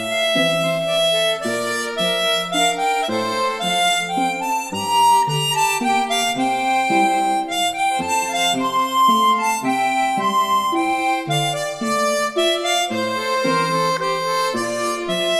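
Background music: a melody of held notes over a lower accompaniment.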